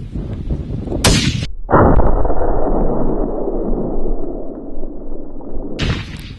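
A rifle shot heard as a loud, deep boom that rumbles on for about four seconds, starting about two seconds in. A gust of wind on the microphone comes just before it.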